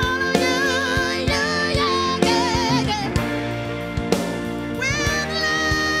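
Six-piece soul-rock band playing live: a woman sings lead with a wide vibrato over a drum kit.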